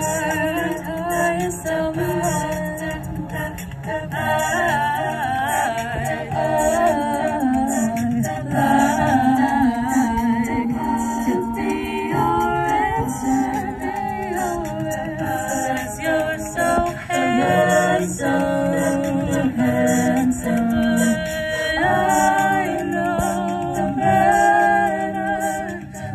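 A group of young female singers singing a cappella into microphones, several voices in harmony with no instruments.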